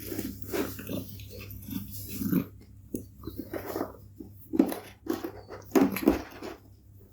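Domestic cat purring close to the microphone, a steady low rumble under irregular louder rustling, scratchy bursts, the loudest about four and a half and six seconds in.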